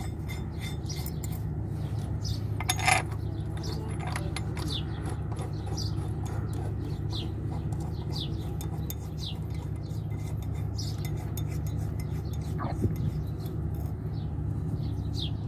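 Steel bolts clinking and scraping as they are threaded by hand through a steel seal-installer plate on a Cat C15 engine's rear crankshaft seal, with one sharper metal clink about three seconds in. A steady low hum and short high chirps run underneath.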